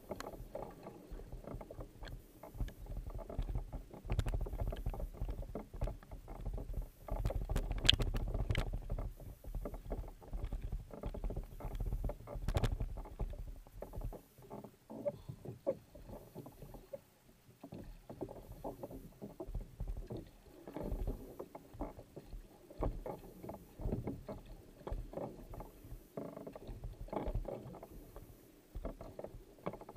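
Sprint kayak under way, heard up close from its deck: repeated paddle blades catching and pulling through the water with splashing, over the wash of water along the hull. A low rumble runs under the first half.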